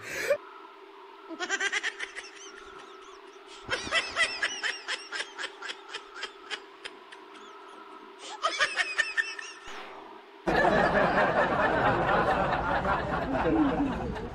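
High-pitched snickering laughter in three bursts of quick pulses, over a faint steady hum. About ten seconds in, a loud noisy stretch cuts in suddenly.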